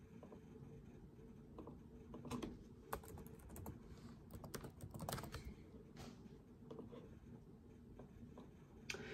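Faint, scattered keystrokes on a laptop keyboard, typing a short word.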